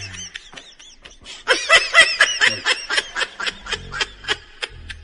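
Rapid, high-pitched laughter, a run of short 'ha' pulses about four or five a second, starting about a second and a half in.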